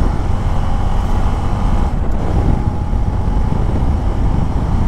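Motorcycle riding at speed, its engine running under a steady low rumble of wind on the microphone.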